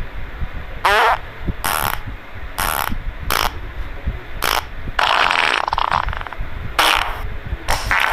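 A string of short novelty sound effects, about one a second, among them a falling warbled tone and a longer noisy burst, over a low rumble.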